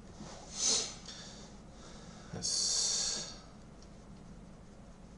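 A man breathing noisily through his nose close to the microphone, twice: a short breath under a second in, then a longer one lasting about a second.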